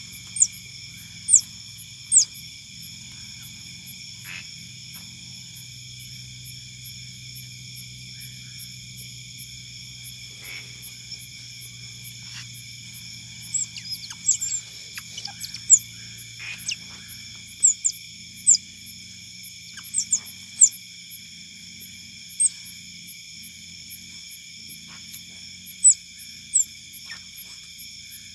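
Otters giving short, high-pitched, falling squeaks every second or two, over a steady chorus of night insects.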